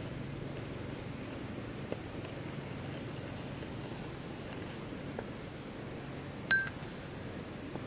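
A bamboo tube used as a pestle pounds and grinds in a small ceramic bowl of dipping sauce, giving faint soft taps. About six and a half seconds in there is one sharp clink, with the bowl ringing briefly.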